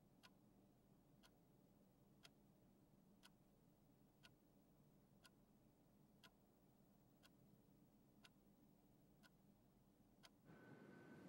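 Faint ticking of a clock, one tick a second, with little else heard. Near the end the ticking stops and a steady faint hum with a thin high tone comes in.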